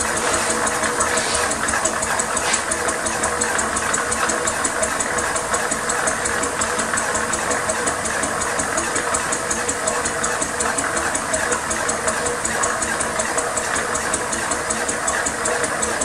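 Quarter-scale replica Fowler 16 hp single-cylinder ploughing engine running steadily on compressed air with a rapid, even exhaust beat, driving its winding drum as it winds wire rope on.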